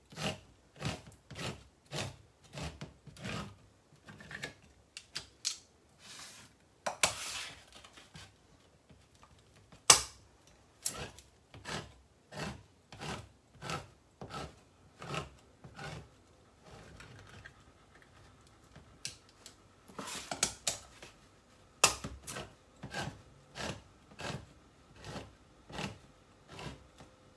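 Handheld manual can opener being cranked around the rim of a steel can, clicking about twice a second with a few louder snaps, pausing briefly about two-thirds of the way through.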